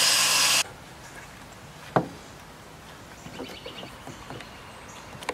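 Table saw cutting through a pine 2x4, a loud steady whine-and-rasp that stops suddenly about half a second in. After it, low-level quiet with one sharp knock about two seconds in and a few faint light ticks later on.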